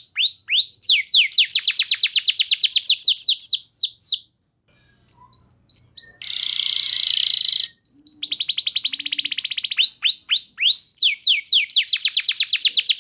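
Domestic canary singing: repeated high downward-sweeping whistles and fast trills. There is a brief pause about four seconds in, and a harsh buzzy rattle around six to seven and a half seconds before the trills resume.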